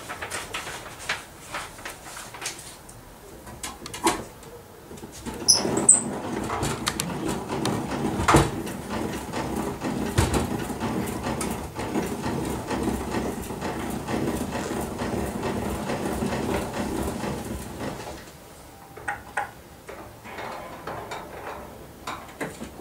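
Mechanical handling noises from a wind-up horn gramophone: scattered clicks and knocks, a cluster of sharp clicks about five seconds in, then a steady rasping sound for about twelve seconds, then more scattered clicks.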